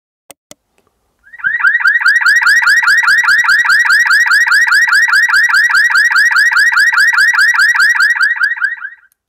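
Yacht Devices YDAB alarm button's theft-alarm tone played through a small waterproof Visaton speaker in its cardboard box: a loud electronic alarm of rapid rising chirps, about six a second. It starts about a second and a half in, once the button has been held down, and stops shortly before the end.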